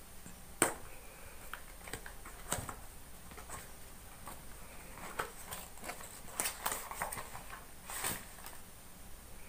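Cardboard packaging being opened by hand: scattered light clicks, scrapes and rustles as the box is pulled open and its inner tray and pouch slid out.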